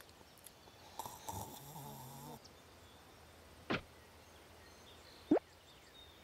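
A cartoon character snoring once, a drawn-out snore with a breathy hiss about a second in. Later come two short, sharp sound effects, the second sweeping upward in pitch.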